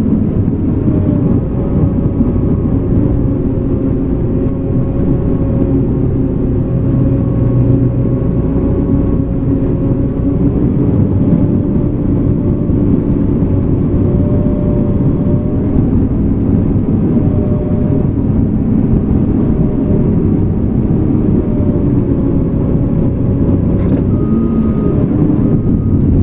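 Cat D5K2 crawler dozer's diesel engine running steadily, a low rumble with a steady whine above it.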